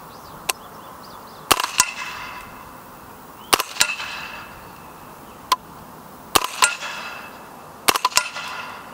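Integrally suppressed Spikes Tactical Brown Recluse 9mm carbine firing four subsonic rounds, each suppressed shot followed about a third of a second later by the ping of a hit on a steel target plate, which rings briefly.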